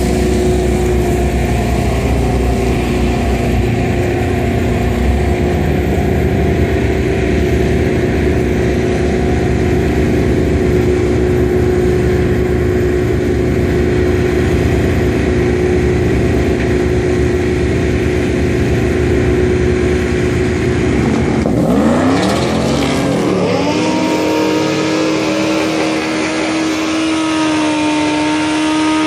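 A drag-prepped pickup truck's engine rumbles loudly and steadily at the starting line. About 22 seconds in it revs up sharply as it launches down the strip, and the deep rumble falls away into a steady high drone as the truck pulls away down the track.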